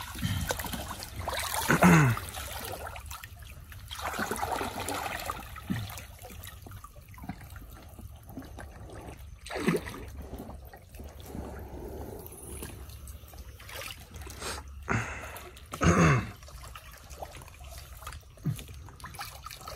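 Shallow canal water trickling and splashing as hands grope through it for freshwater prawns, with a few short, louder sounds scattered through it.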